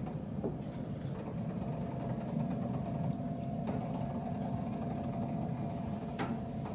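Steady hum of a pellet grill's fan running, with a faint thin whine above it. A few faint clicks come as pork chops are set on the wire grate.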